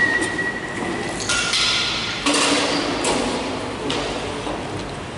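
Desks and chairs scraping and squeaking across a tiled floor as they are moved, with two held high squeals in the first two seconds and several short scrapes and knocks.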